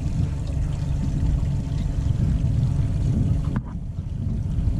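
Small aluminium boat underway at trolling speed: a steady low rumble of the outboard motor mixed with water washing along the hull. The higher hiss drops away abruptly about three and a half seconds in.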